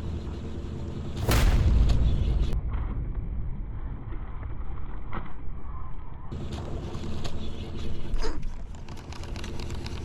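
A giant snakehead striking a soft-plastic lure at the surface: a loud, noisy splash-like burst about a second and a half in, lasting about a second, over a steady low hum.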